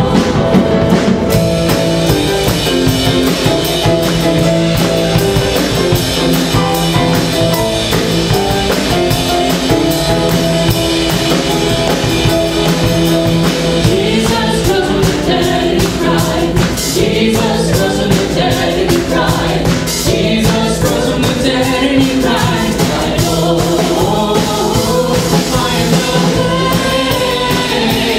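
Live worship music: two women singing a worship song into microphones over a drum kit and accompaniment, steady throughout.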